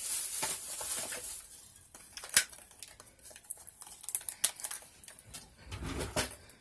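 Light clicks and taps of small plastic makeup items, lip gloss tubes and their packaging, being handled and set down, with a soft rustle over the first second.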